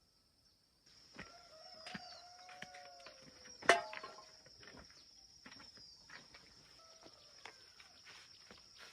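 Rural outdoor ambience: chickens and small birds calling over a steady high insect drone, with scattered clicks and one sharp knock about four seconds in.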